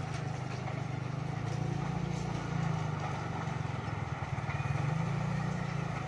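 Steady low drone of a running motor, slightly swelling and easing, over a faint even hiss.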